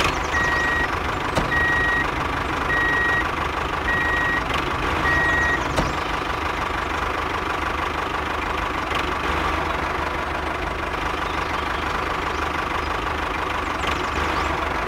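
Tractor engine running steadily, with five short beeps about a second apart over the first six seconds.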